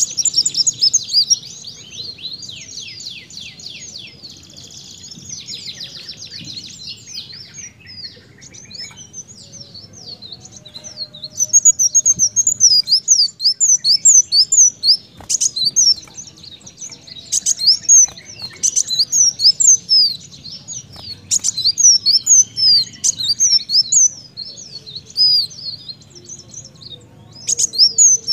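A kolibri daun (ruby-cheeked sunbird) sings a fast, high twittering song of rapid trills and chattering phrases in the canary style, in loud runs with quieter stretches between. A few sharp clicks fall among the phrases.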